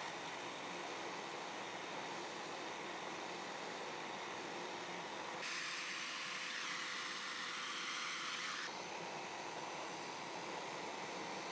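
Dust extractor drawing air through a flexible hose held at a pillar drill that is boring holes into an oak block with a Forstner bit: a steady hiss. About halfway through, the hiss turns higher and brighter for about three seconds.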